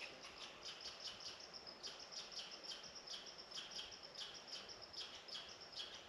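Faint high-pitched chirping, about three or four short chirps a second with brief pauses, over a soft hiss of outdoor ambience.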